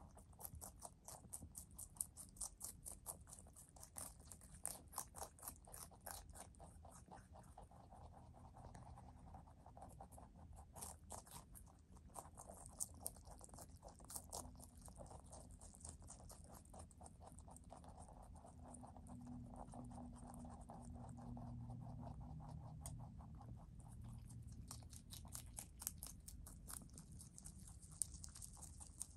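Two rabbits chewing leafy greens: a fast run of small crisp crunches, sparser in the middle and dense again near the end, with a faint low hum for a few seconds midway.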